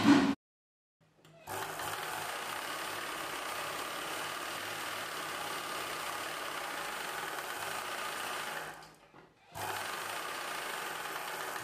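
Ralson straight-stitch sewing machine running steadily, sewing a seam through blouse fabric. It starts about a second and a half in, stops briefly about nine seconds in, then runs again.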